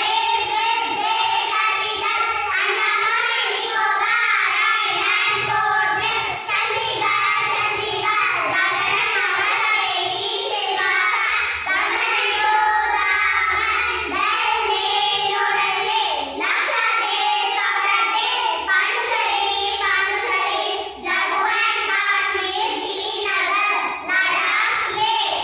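A group of young girls singing together in unison, in phrases with short breaks between them.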